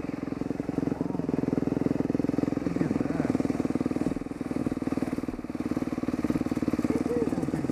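Dirt bike engine running at low speed on a muddy trail, a steady, rapid pulsing, with the throttle eased off for about a second in the middle before picking up again.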